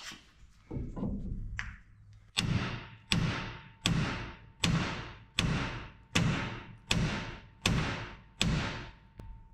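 Hammer striking the side of a steel front-suspension spindle again and again, each blow ringing briefly, about one every three-quarters of a second after a few lighter knocks, to shock a tapered ball joint stud loose from the spindle.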